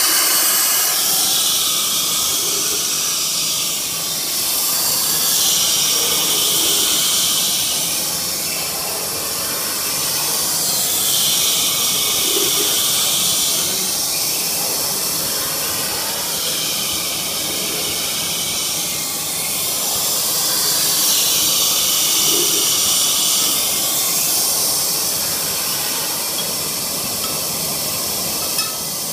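Steam hissing steadily from a steam washing tool for metal pipes, the hiss swelling and easing every few seconds. A short click near the end.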